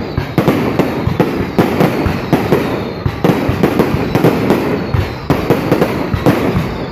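Fireworks going off in quick succession, with many sharp bangs and cracks overlapping one another without a pause.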